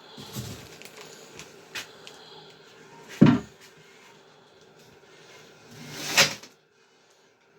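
Knocks and clunks of objects being handled in a small room: a few light knocks, a loud thud about three seconds in, and a scrape that builds into a louder clunk just after six seconds, after which the sound cuts off abruptly.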